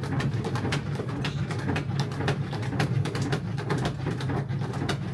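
Long wooden paddle stirring a thick, sticky halva mixture in a large cauldron, with rapid irregular knocks and scrapes of the paddle against the pot over a steady low churning sound.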